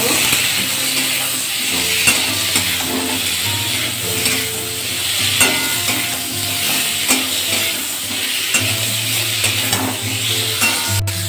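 Cubes of elephant foot yam and potato sizzling as they fry in oil in a metal kadai. A flat spatula stirs and scrapes them, making frequent short clicks against the pan.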